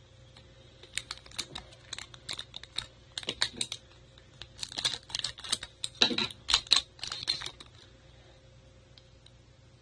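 Foil wrapper of a trading-card pack crinkling as it is handled, a rapid, uneven run of sharp crackles that starts about a second in and stops a couple of seconds before the end.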